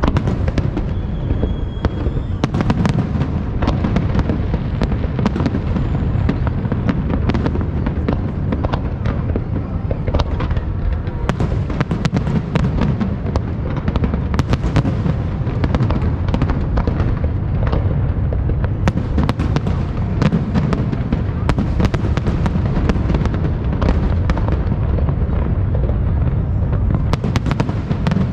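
Fireworks going off without a pause: many sharp cracks and pops in quick succession over a steady low rumble of booms.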